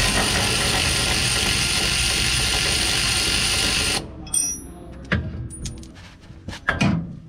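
Cordless electric ratchet running a bolt for about four seconds, then stopping abruptly. A few short metal clinks and knocks follow as parts are handled.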